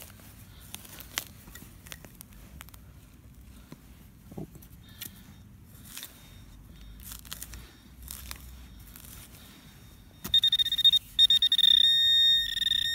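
Quiet scraping and crunching of a digging knife cutting into turf and soil. About ten seconds in, a metal-detecting pinpointer starts beeping in quick pulses, then goes into a steady high tone near the end: the sign that it is right on a metal target in the dug soil.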